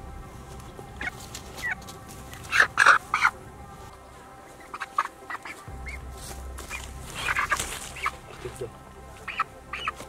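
A chicken squawking and clucking in short bursts, loudest about three seconds in and again around seven to eight seconds in.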